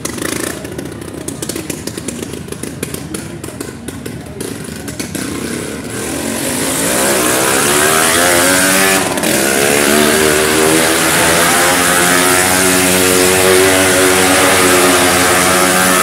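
Motorcycle engine running at low revs with a rapid putter, then revving up about six seconds in and holding a steady high note as the bike rides the arena, with a brief dip about nine seconds in.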